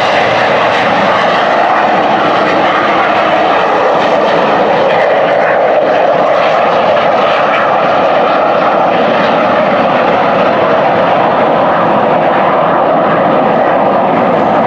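Aircraft engines running loudly and steadily, a dense rushing drone that starts abruptly and holds level without rising or fading.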